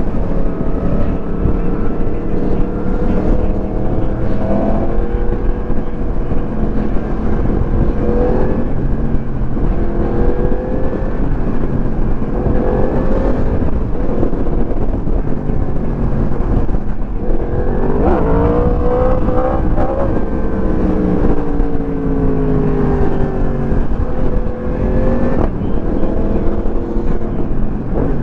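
Motorcycle engine under way, its pitch rising and falling several times as the rider accelerates and eases off, over a steady low rumble.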